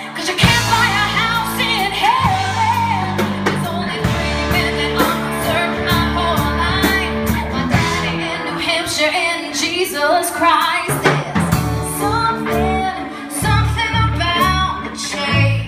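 Live band playing a pop-rock song, with a woman singing lead over electric guitar, keyboard, bass guitar and a drum kit.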